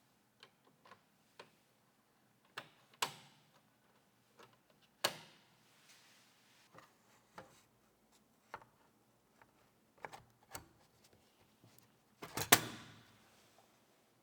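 Scattered light clicks and knocks of PC hardware being handled and fitted, with a louder cluster of knocks near the end.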